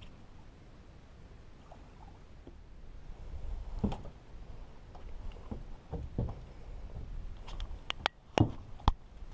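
Fly line being stripped in by hand on a small boat, with a low rumble underneath and scattered soft knocks. Near the end come several sharp knocks on the boat, the loudest two about half a second apart.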